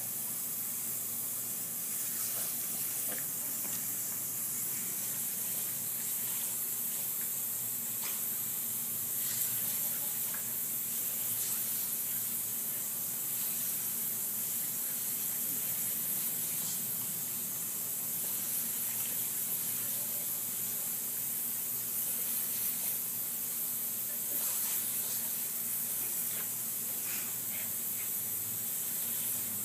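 Pop-up lawn sprinkler head spraying with a steady hiss, with scattered short ticks and splashes as a pug snaps at the jet of water.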